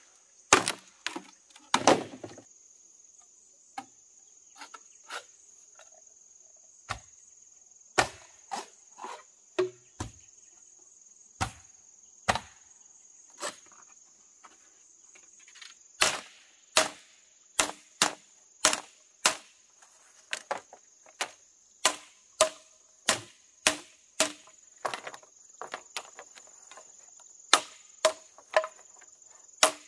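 Repeated sharp blows of a hand tool on wood, scattered at first and then coming regularly, about two a second, from around the middle. A steady high insect drone runs underneath.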